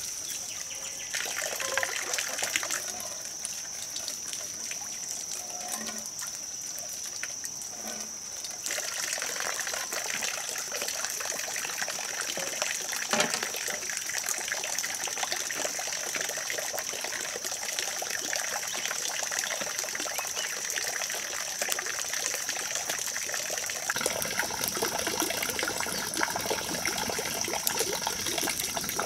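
Steady trickle of running water under a continuous thin, high-pitched tone, growing a little louder about nine seconds in.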